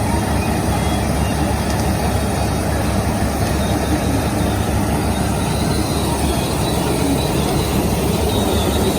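John Deere X9 combine harvester running: a steady, low mechanical drone of engine and machinery with no breaks.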